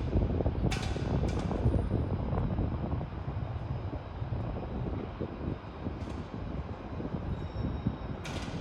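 Strong gusty wind buffeting the microphone: a low, fluctuating rumble, with a few short higher hissy bursts about a second in, around six seconds in and near the end.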